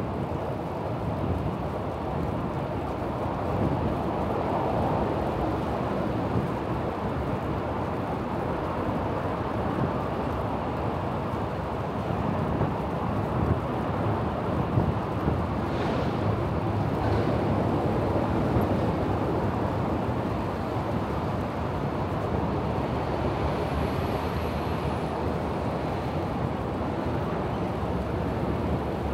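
Steady rushing wind and road noise from a moving bicycle, picked up by a chest-mounted camera's microphone.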